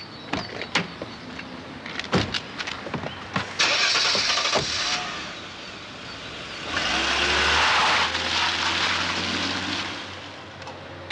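Mercedes saloon car: a few door thuds, then the engine starts about three and a half seconds in. The car pulls away, its engine and tyres loudest between about seven and ten seconds before fading off.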